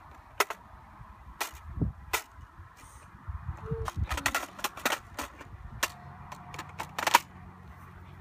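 Plastic clicks and clacks from a toy Nerf blaster being handled, scattered sharp clicks with a quick cluster about halfway through and another near the end.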